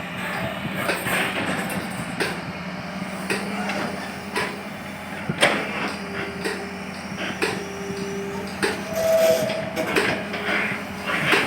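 Hydraulic excavator's diesel engine running steadily while loading soil into a truck, with repeated sharp metallic knocks and clanks from the working machine. A brief higher tone comes in about nine seconds in.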